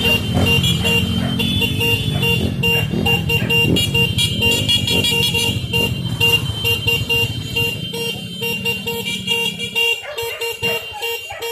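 A horn tooting in rapid, regular short blasts over the rumble of running vehicle engines; the rumble drops away near the end.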